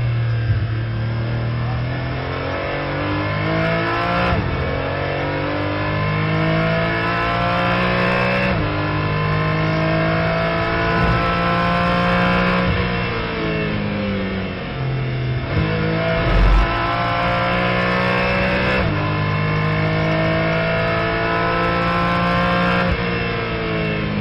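Porsche 718 Cayman GT4 race car's flat-six engine heard onboard, accelerating hard through the gears with quick upshifts, then falling in pitch through braking and downshifts before pulling up through the gears again. A single low thump about two-thirds of the way in.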